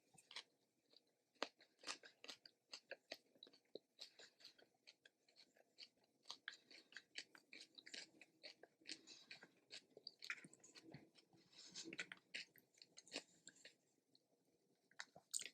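Faint, close-up chewing of food: a person's mouth working with soft crunches and small wet clicks, coming irregularly throughout.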